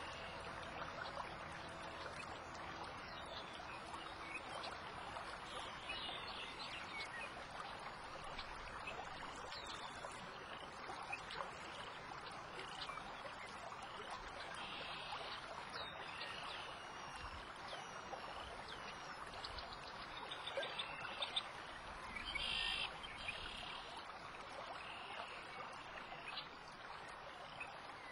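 Steady rush of flowing stream water, with small birds giving short high chirps now and then. A louder run of chirps comes about three-quarters of the way through.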